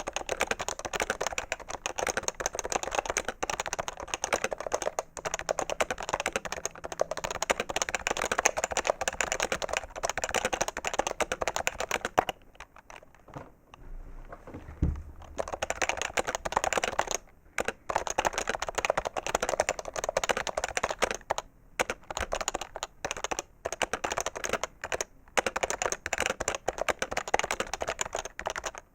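Fast typing on a PFU HHKB Professional 2 keyboard with Topre electrostatic capacitive switches: a dense run of key strokes that stops for about three seconds near the middle, then resumes in bursts with brief gaps.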